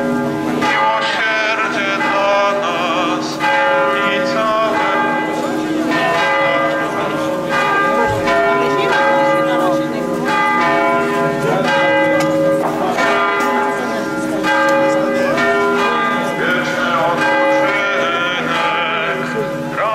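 Church bells ringing for a funeral, several bells of different pitch struck over and over, their long tones overlapping.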